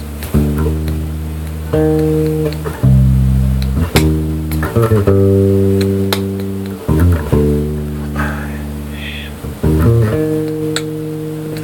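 Unaccompanied electric bass guitar playing a slow gospel bass line: long, ringing notes, each plucked with a clear attack, with quick runs of short notes about five and seven seconds in.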